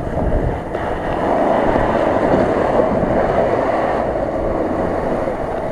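Mitsubishi L200 pickup's engine running under load as its tyres churn through deep mud, getting louder about a second in and easing slightly near the end.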